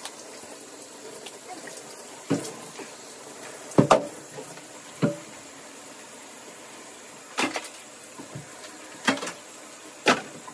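Shower water running steadily, with about six sharp knocks and thumps scattered through it, the loudest a double knock about four seconds in.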